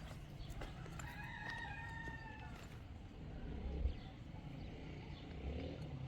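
A rooster crowing once: a single drawn-out call lasting about a second and a half, over a low background rumble. A dull thump comes a little before four seconds in.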